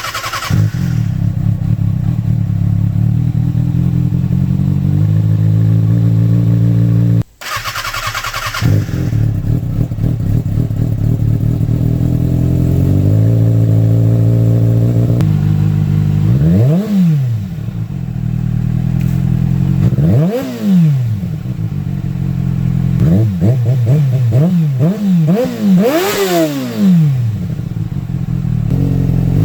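2007 Kawasaki ZX-6R inline-four running through an MJS Performance header with the catalytic converter deleted. The engine holds a steady note that steps in pitch, cuts out briefly about seven seconds in, then gives a series of throttle blips rising and falling in pitch, several quick ones close together near the end.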